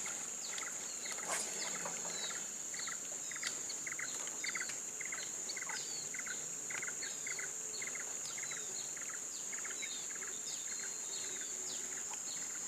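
Wild outdoor ambience: a steady high-pitched insect hum, with a bird chirping over and over in short calls, about two a second.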